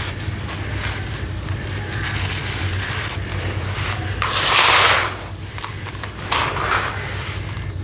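Dusty sawdust-and-sand clumps crumbling into water, a continuous crackly, gritty rustle. A louder burst of crumbling comes about four seconds in, and a shorter one a couple of seconds later.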